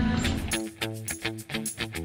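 Background music: an upbeat track with plucked guitar, repeated bass notes and a steady beat, coming in about half a second in.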